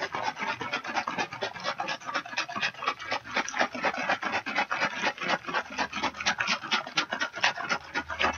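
Sugar and water sloshing inside a plastic shaker bottle with a screw-on lid, shaken hard in a fast, even rhythm of about six shakes a second, mixing the sugar into hummingbird nectar.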